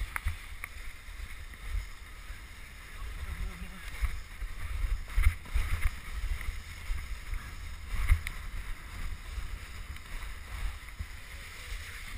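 Wooden krňačka sled running downhill over packed snow: a steady scraping hiss from the runners with a low rumble, broken by repeated knocks and jolts as the sled bumps over the uneven track.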